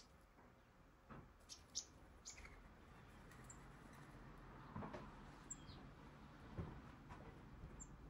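Faint, scattered high-pitched bird chirps and short call notes from backyard songbirds, with a couple of soft knocks about five and seven seconds in.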